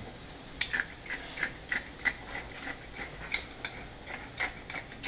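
Hand-twisted seasoning grinder mill being turned over a frying pan: a steady run of dry ratcheting clicks, about three a second, starting about half a second in.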